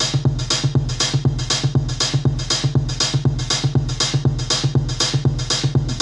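Live minimal-techno groove: a Roland R-8 drum machine beat with steady hi-hats about four a second, under a Roland SH-101 synth bassline that plays a programmed TB-303 pattern through a Kenton MIDI-to-CV converter.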